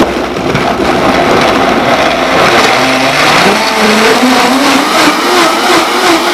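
Vitamix Creation Series high-powered blender running, its motor coming up to speed in the first half second and then running loud and steady as it blends frozen pineapple and banana, vegetables and spinach into a smoothie. The motor's pitch wavers under the changing load as the chunks break up.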